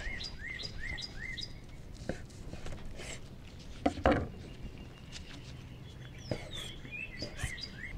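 Small birds chirping, a run of short rising chirps repeated in quick series at the start and again near the end. A few knocks of a knife on a wooden cutting board, the loudest about four seconds in.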